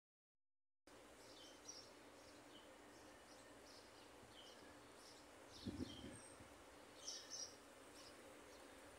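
Faint outdoor background with small birds chirping: short, high calls, several falling in pitch, scattered every second or so. A soft low thump about six seconds in.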